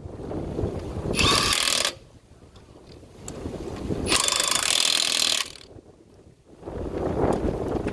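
Car wheel nuts being tightened in turn with a wrench: three loud bursts of mechanical rattling, each a second or more long, with quieter handling noise between.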